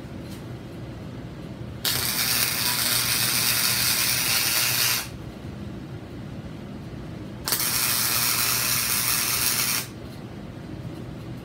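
MIG welder arc crackling and sizzling in two bursts, about three seconds and then two seconds long, while steel is tack-welded. A steady low hum runs underneath.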